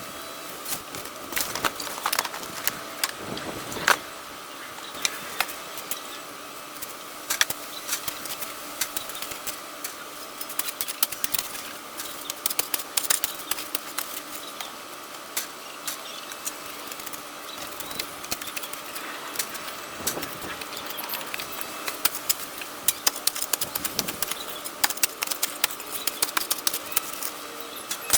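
Shovel digging a post hole in sandy, stony soil: repeated irregular scrapes and sharp clinks as the blade cuts in and hits stones.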